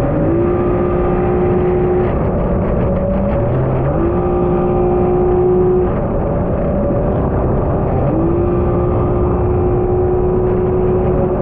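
2022 Yamaha Superjet stand-up jet ski's three-cylinder engine revving under throttle while riding, the pitch climbing and holding three times, each time about a second or so after it drops, over a steady rush of noise.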